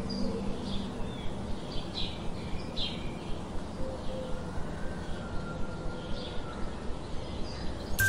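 Forest ambience: scattered short bird chirps over a steady background hiss, with one thin drawn-out whistle in the middle.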